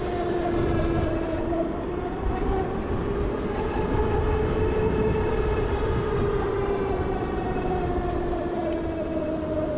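Zero electric motorcycle riding along, its electric motor giving a whine that rises in pitch as it speeds up over the first few seconds and then falls as it slows near the end, over low wind rumble on the microphone.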